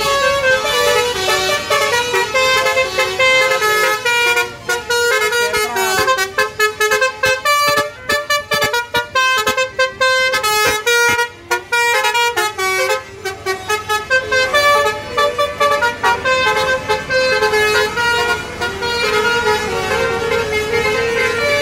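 Bus telolet horn, a Basuri multi-tone air horn, playing a tune of short stepped notes. The notes come fast and clipped through the middle, with longer held notes before and after.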